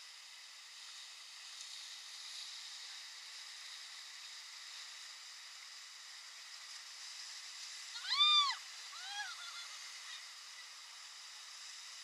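Steady hiss of a fast whitewater river rushing past a raft. About eight seconds in, a brief high-pitched squeal rises and falls, with a shorter one a second later.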